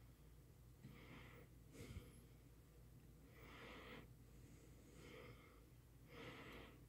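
Near silence: a person's faint breathing, a soft breath about every second and a half, over a low steady hum.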